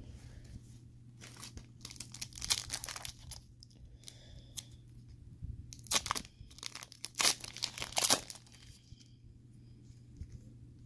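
Foil wrapper of a trading-card pack being torn open and crinkled by hand, in several crackly rips, loudest near 6 s and between 7 and 8 s in.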